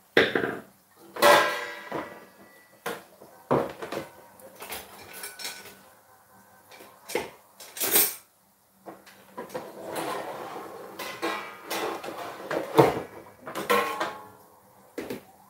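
Dishes, pots and metal cutlery clattering in a string of irregular knocks as someone rummages through kitchenware.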